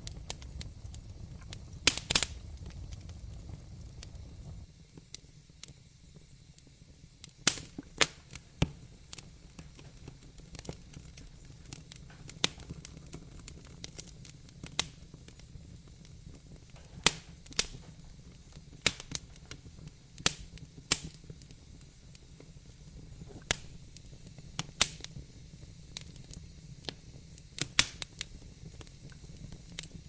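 Wood fire crackling in a fireplace: irregular sharp pops and snaps over a soft hiss. A low rumble underneath drops away about four and a half seconds in.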